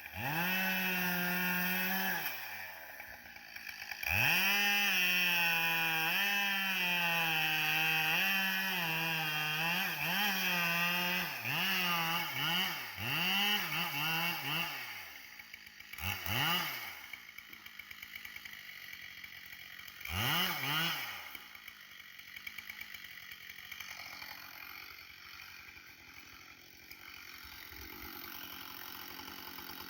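Two-stroke chainsaw running at full throttle, its pitch wavering and sagging as the chain bogs under load in a felling cut. It then gives a string of quick throttle blips and drops to idle, with two short revs in between.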